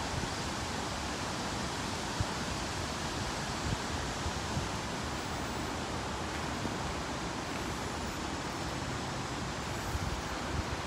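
Steady rushing of a waterfall: an even hiss of falling water that holds at one level throughout.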